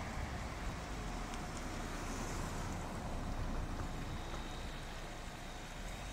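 Güldner Multitrac 517 tool carrier's diesel engine running at a distance as it drives along, faint under a steady rushing noise.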